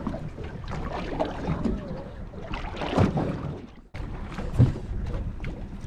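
Wind buffeting the microphone and water slapping against the hull of a small aluminium boat, with a couple of sharp knocks, one about halfway and a louder one about three quarters of the way through.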